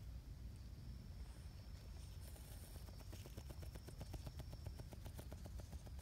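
A cat scratching its neck with a hind paw: a fast, even run of soft scratches, about ten a second, starting about three seconds in and lasting some two seconds.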